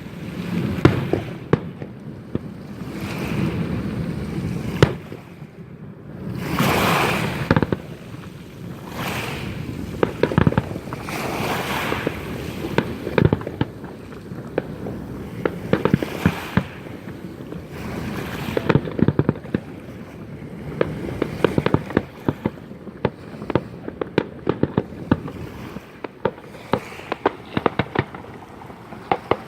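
Festival fireworks display: a rapid, continuous run of bangs and crackling, with louder swells of crackle every few seconds.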